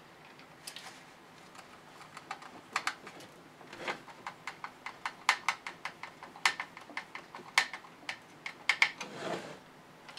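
Irregular clicks and light knocks of 3D-printed plastic parts being handled and fastened by hand as the snow blower attachment is fitted to the RC chassis, with a brief scrape near the end.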